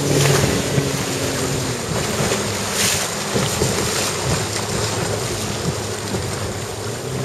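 RIB under way: its engine running with a steady low hum, under the rush of water against the hull and wind buffeting the microphone.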